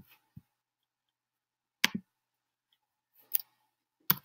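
Computer mouse clicks: about five sharp, separate clicks, irregularly spaced, with near silence between them.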